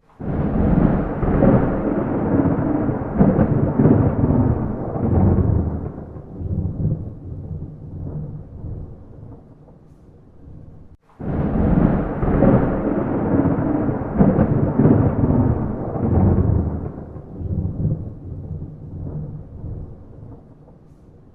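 Two peals of thunder without rain. Each starts suddenly and loud, rolls on heavily for about six seconds, then tails off into weaker rumbles; the second begins about halfway through, right after a brief dropout.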